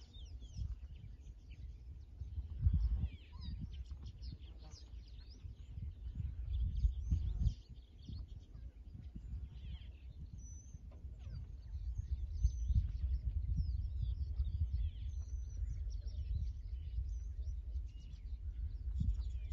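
Wind buffeting the microphone with an uneven low rumble that surges about 3 and 7 seconds in, over many small birds chirping and calling.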